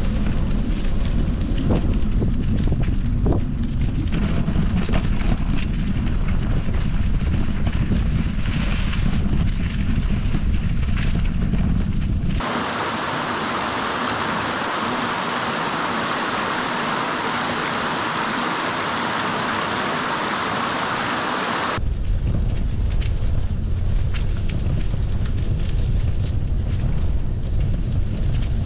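Heavy wind rumble on the microphone of a bicycle riding along a dirt trail. About twelve seconds in it cuts to a rocky brook rushing steadily over stones for about nine seconds, and then the wind rumble returns.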